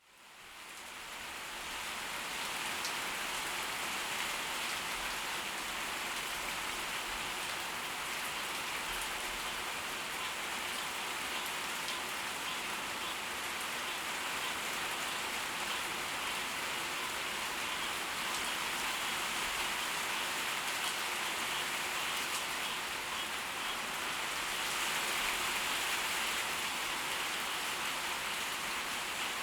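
Steady tropical-storm rain pouring down, a dense, even patter of drops that fades in over about the first second and then holds level.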